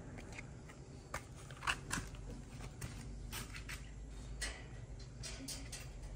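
Irregular small clicks and crackles, about a dozen short sharp ones scattered over several seconds, over a low steady background hum.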